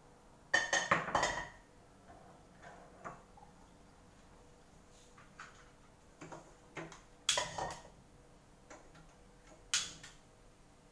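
A metal wok set down on a gas hob's pan grate with a cluster of clanks, followed by scattered clicks and knocks as the stove knob is turned and the gas burner is lit.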